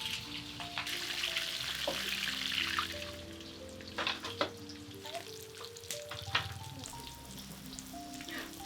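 Food frying in hot oil, a loud sizzle that eases off after about three seconds, with a few sharp clicks midway. Instrumental background music plays throughout.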